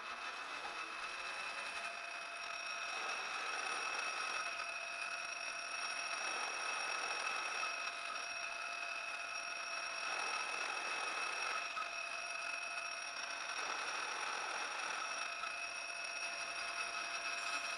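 Metal lathe running steadily, its spindle turning a part on a mandrel between centers while the tool takes a finishing pass on the outside diameter. Several steady high whining tones, with a cutting hiss that swells and fades every few seconds.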